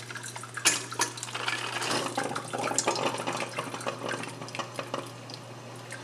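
Drip coffee maker gurgling and sputtering as the last of the water is pushed through at the end of its brew cycle, over a steady low hum. The sputters thin out over the last couple of seconds as it runs dry.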